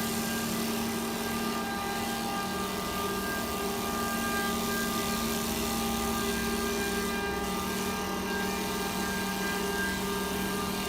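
CNC wood lathe running: a steady machine hum with a constant whine, holding at one pitch.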